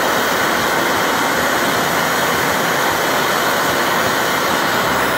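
MAPP gas torch burning with a steady hiss.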